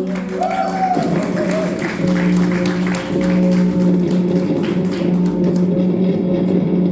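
Loud live music: held droning tones under a dense, noisy wash, with a brief wavering pitch glide about half a second in.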